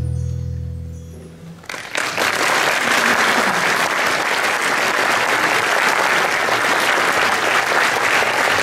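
The accordion ensemble's final sustained low chord fades away over about a second and a half, then the audience breaks into steady applause.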